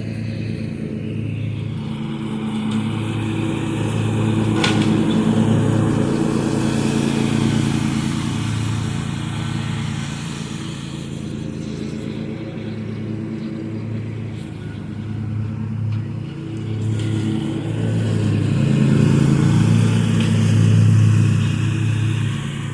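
Zero-turn lawn mower's engine running steadily close by, growing louder twice as it works.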